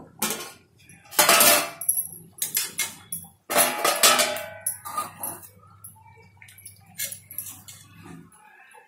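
Metal clattering and scraping of a steel lid and a steel ladle against an iron kadai as the curry is stirred. The loudest clatters come about a second in and again around four seconds in, followed by lighter taps and scrapes that fade out near the end.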